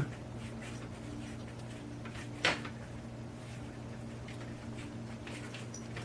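Steady low electrical hum, with one sharp click about two and a half seconds in and a few faint ticks from small hand work on a model locomotive decoder's wires.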